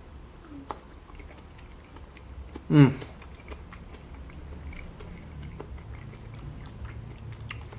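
A man chewing raw tuna sashimi close to the microphone, with many small wet mouth clicks. About three seconds in, a short vocal sound falls in pitch.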